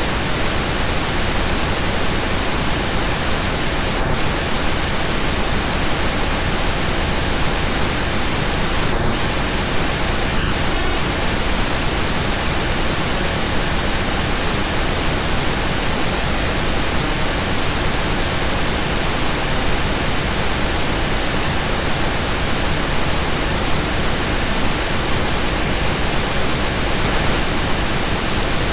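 Steady, even hiss of noise, like pink noise, with short high tones at two pitches fading in and out every couple of seconds.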